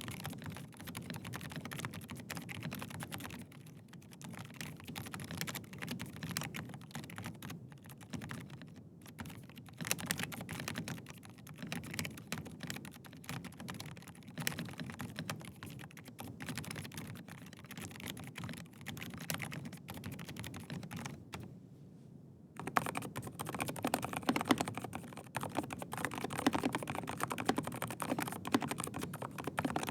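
Continuous typing on a Rapture FoxtRot Ultimate mechanical keyboard with Gateron Silent Red switches: a dense run of soft, muted keystrokes. About 22 seconds in there is a brief pause, then typing resumes on a Rapture Charlie Ultimate, also with Gateron Silent Red switches, with louder and crisper keystrokes.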